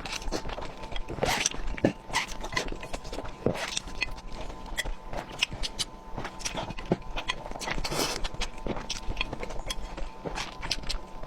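Close-miked eating of sticky spicy fire-chicken noodles: chewing and slurping heard as an irregular run of short clicks and smacks.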